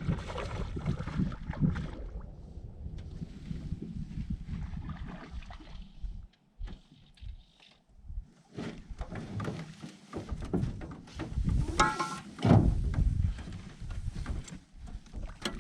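Gusty wind buffeting the microphone out on a boat on a lake, easing for a couple of seconds partway through, with a short pitched sound near the end.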